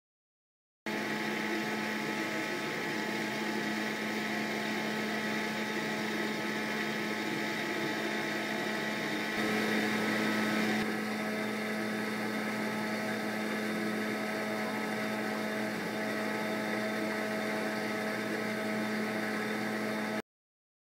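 Steady mechanical hum with hiss from a running machine, such as a motor or pump, holding one low pitch throughout. It swells slightly about nine seconds in and its upper hiss changes character a couple of seconds later.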